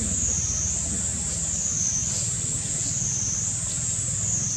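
Steady high-pitched insect drone that wavers slowly up and down in pitch, over a steady low rumble.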